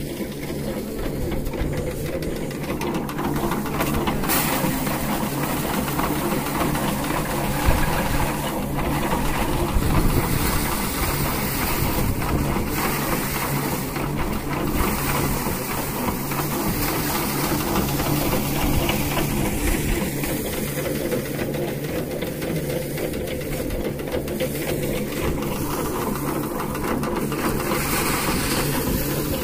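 Motor-driven paddy threshing machine running steadily, a constant low mechanical drone, with a couple of brief sharp knocks.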